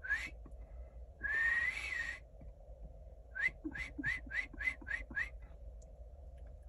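A person whistling: one long, slightly rising whistle about a second in, then a run of short upward-sliding whistle notes, about three a second.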